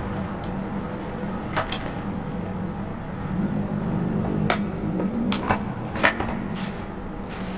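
Clicks and knocks of a compact folding stroller's frame being collapsed and flipped by hand: several sharp clicks about a second and a half in, then a cluster in the second half, over a steady low hum.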